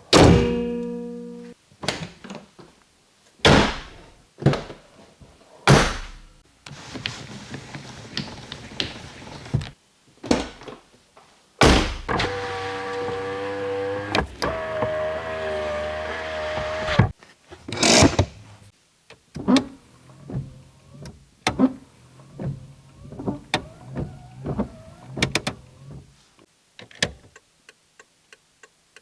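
A run of sounds from a Chevrolet Niva: several loud thunks of doors being shut, an electric motor whirring steadily for about five seconds midway, like a power window running, and a string of light clicks in the second half.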